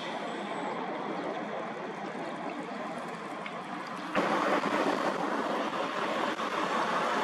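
Steady road and wind noise of a moving local bus, with no distinct engine tone; it gets louder about four seconds in.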